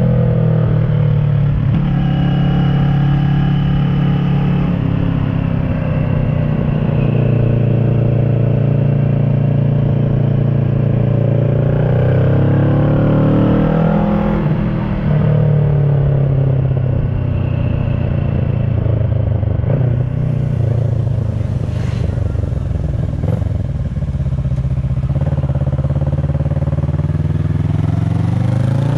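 A 2010 Kawasaki ER-6n's parallel-twin engine running through an SC Project carbon exhaust under way, its note rising and falling with throttle and gear changes, with a dip and climb in pitch about halfway through and again near the end.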